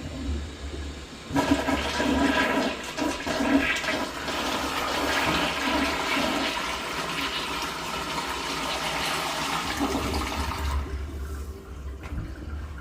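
Rich Plus toilet flushing: water rushes in about a second in and runs steadily for about nine seconds, then dies down to a quieter flow near the end.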